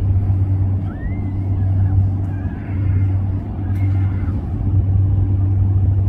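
A loud, steady low drone with a rumbling, gusty edge, like a large engine running. A few faint high chirps rise over it about a second in and again near the middle.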